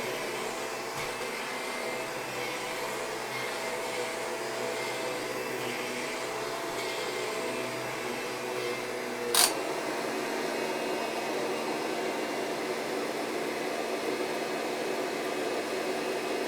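Vacuum cleaner running steadily on carpet. About nine seconds in there is a single sharp click, after which the vacuum's tone changes.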